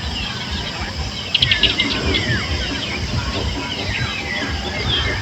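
Several birds chirping and calling at once in quick, overlapping sweeping notes, with a short rapid trill about a second and a half in, over a steady low rumble.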